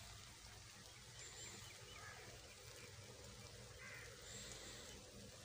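Faint bird calls: a crow cawing about two seconds in and again about four seconds in, with a few short high chirps from other birds over a low, even hiss.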